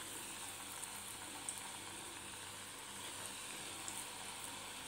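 Cabbage-and-carrot Manchurian batter balls deep-frying in hot oil in a kadhai: a steady, faint sizzle with a few small pops.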